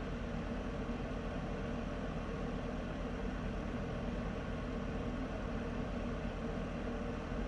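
Electric heater running with a steady, even low hum and noise, its sound deepest at the bottom and thinning out toward the top.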